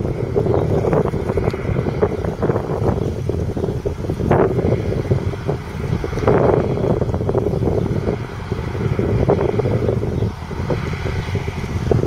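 Deutz-Fahr 5660-HTS combine harvester running, its 6.1-litre six-cylinder diesel giving a steady low drone with irregular knocks and clatter over it.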